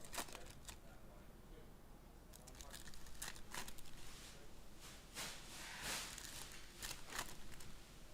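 Trading card pack wrappers being torn open and crinkled, with scattered crackles and a longer tearing rustle about five seconds in.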